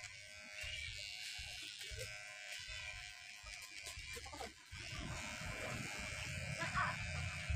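A small electric motor buzzing steadily, with a low rumble that becomes louder about halfway through.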